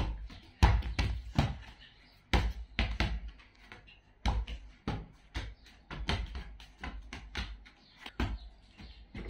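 A football bouncing as it is played with: a string of thuds, one or two a second at uneven intervals.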